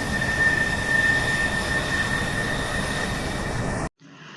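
Jet airliner sound effect: engine noise with a steady high whine, cutting off abruptly near the end.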